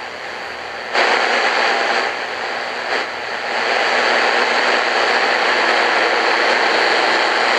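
Shortwave static hiss from an Eton FR250 emergency radio's speaker while it is tuned between stations on the shortwave band. The hiss jumps louder about a second in and swells again a little after halfway.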